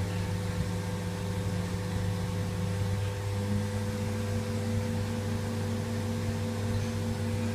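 Air conditioner running with a steady hum and hiss under several constant tones; about three seconds in, one of the tones steps up in pitch and holds, as the motor changes speed.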